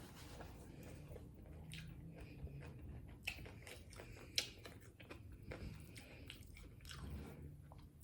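Close-up chewing of a taco: soft crunching and wet mouth clicks, with a few sharper clicks around the middle.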